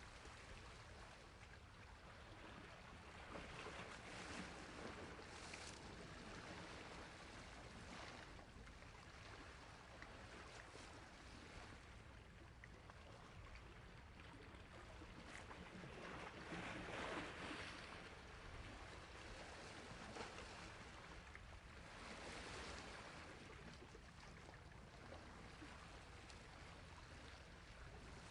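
Sea waves washing on a shore, soft and continuous, with a few swells of surf; the strongest comes a little past halfway.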